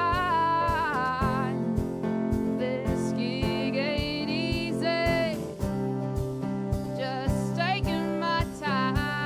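Small live band playing an original song: a drum kit keeps a steady beat under guitar, with a melody line that bends and wavers above them.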